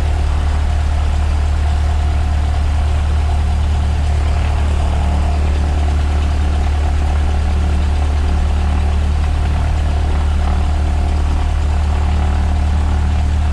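Cessna 152's four-cylinder engine and propeller running steadily, a continuous low drone.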